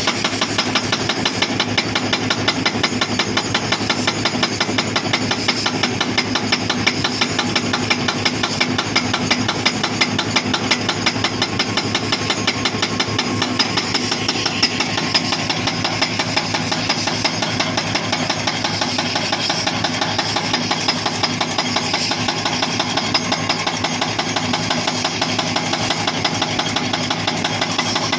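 Hydraulic breaker on a Hitachi Zaxis 240 excavator hammering rock in a rapid, steady rhythm, with the excavator's diesel engine running under it.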